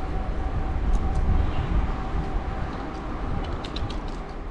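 Wind buffeting the handlebar-mounted action camera's microphone with the low rumble of road bike tyres on a paved path while riding. A faint steady tone runs underneath, and a few light ticks come near the end.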